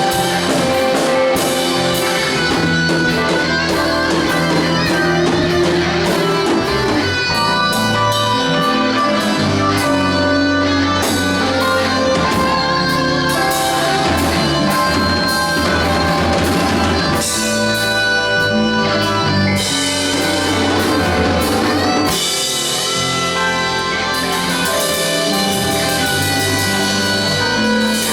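A rock band plays a live instrumental jam: electric guitar, bass and drum kit, with keyboard, playing together at full volume.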